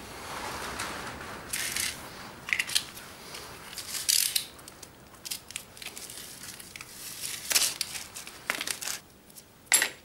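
Intermittent rustling and crinkling from hands handling small parts and materials, with scattered small clicks. The loudest is a sharp rustle just before the end.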